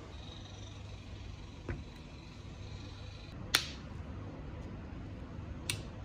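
Handling sounds: a soft tap, then two sharp clicks, the loudest about halfway through, over faint steady room noise.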